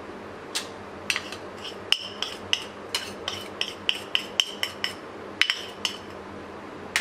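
A small bowl clinking repeatedly against the rim of a stainless steel blender jug as black salt is knocked out of it. The light, ringing taps come irregularly, about two or three a second.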